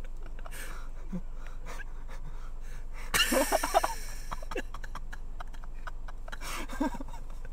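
Stifled, breathy laughter: a loud burst about three seconds in and a shorter one near the end, over a steady low hum.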